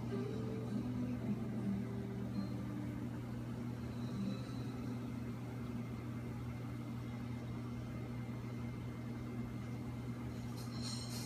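Steady low hum of a reef aquarium's pumps, over a faint even hiss.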